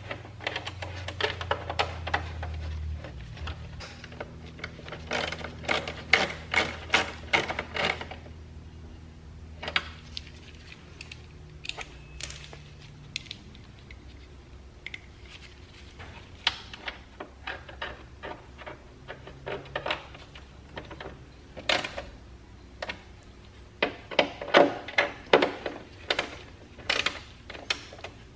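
Ratchet wrench clicking in quick runs as the 10 mm bolts of a car's side panel are run in and tightened, over a low steady hum.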